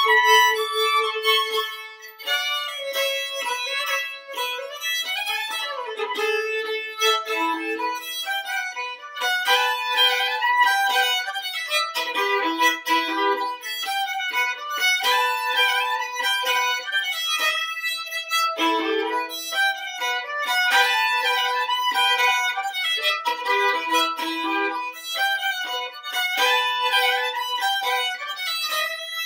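Solo fiddle played with the bow, running through a tune in quick notes. A long note is held at the start and breaks off about two seconds in before the tune carries on.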